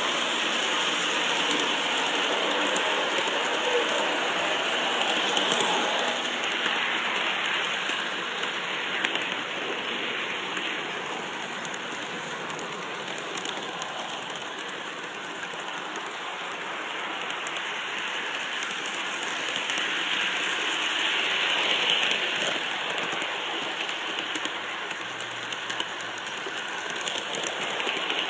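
G scale model train rolling along its garden track, heard from a camera riding on the train: a steady hiss of wheels and running gear that swells and eases gently.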